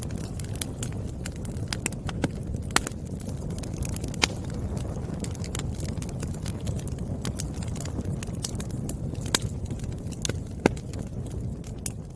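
Firewood fire crackling: irregular sharp pops and snaps, a few louder than the rest, over a steady low rush of burning.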